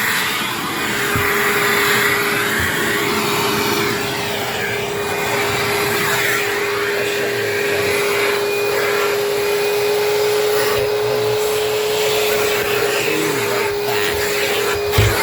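Vacuum cleaner running steadily, with a constant motor whine and a rushing airflow that swells and fades. A short knock comes near the end.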